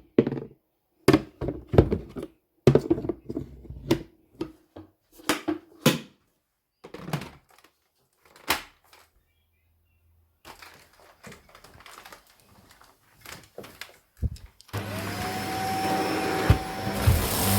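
Handling knocks and clicks, then a vacuum cleaner switched on about three seconds before the end, its motor spinning up with a rising whine that settles into a steady run.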